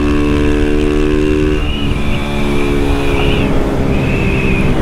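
Honda CG 160 Fan's single-cylinder four-stroke engine running under way through a Dore aftermarket exhaust, with wind rushing over the microphone. The steady exhaust note breaks about a second and a half in and turns rougher.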